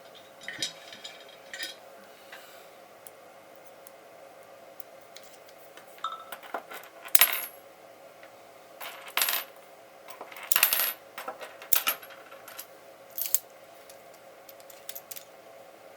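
Small metal parts clinking and tapping, a dozen or so separate sharp clicks, as the nozzles of a hot air rework station are swapped for a bigger one, over a faint steady hum.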